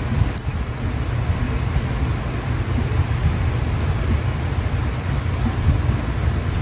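Wind buffeting the microphone: a steady, jagged low rumble, with a couple of faint clicks near the start.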